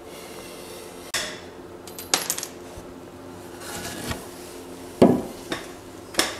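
Several separate knocks and light clatters as a newly hung oak cabinet door is swung open on its hinges and handled to check its fit, and a cordless drill is set down on a wooden shelf. The loudest knock comes about five seconds in.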